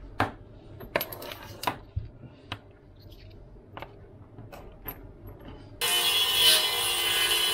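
Light metallic clicks and clinks of small aluminium tubes being handled and set down on a cutting mat, about nine in all. Near the end a loud, steady noise starts suddenly as a small benchtop table saw runs into an MDF board.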